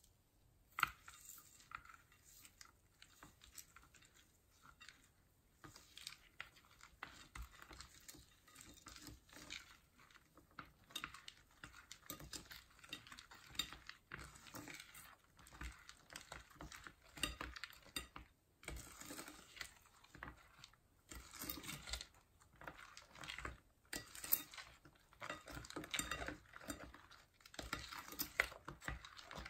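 Metal spoons stirring glitter, beads and sequins into slime in a glass bowl: irregular clinks and scrapes of metal on glass, with a sharp clink about a second in.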